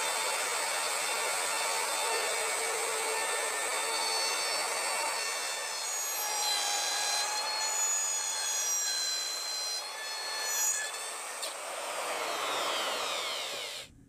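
Handheld router spinning a 1/4-inch two-flute spiral bit, routing a jack-o'-lantern face out of a wooden box along a plywood template, its high whine wavering in pitch as the bit bites into the wood. Near the end the pitch falls away as the router winds down, then the sound cuts off abruptly.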